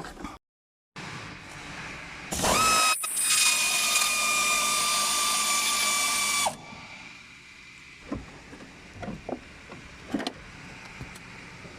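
Power tool spinning up with a rising whine and running steadily for about four seconds as it undoes a bolt holding the seat-recline mechanism, then winding down. Light clicks and knocks of handling follow.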